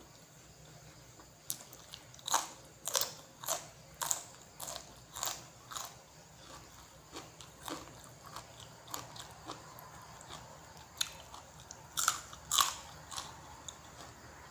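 Close-up crunchy bites and chewing of food, a series of sharp crisp crunches about once or twice a second, thinning out in the middle and picking up again near the end.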